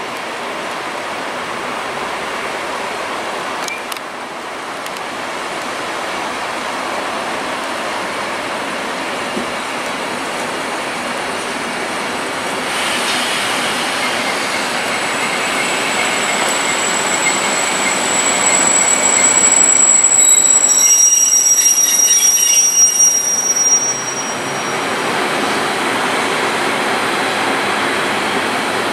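Class 73 locomotive hauling a Network Rail test train past at low speed, with steady running and rail noise. About thirteen seconds in, high-pitched wheel squeal sets in. It is loudest about twenty seconds in and dies away a few seconds later.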